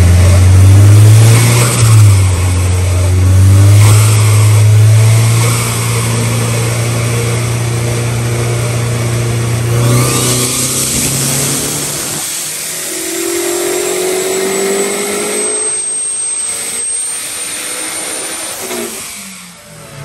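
Turbocharged Honda S2000 four-cylinder engine running, revved up and down over the first dozen seconds, then dropping back and quieter. A thin high whistle rises slowly near the end.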